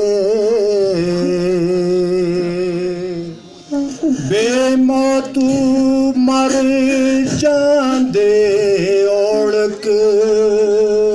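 A man singing a slow song in Pahari into a microphone, drawing out long wavering notes. The line breaks off briefly about four seconds in and again about eight seconds in. A steady low drone runs underneath.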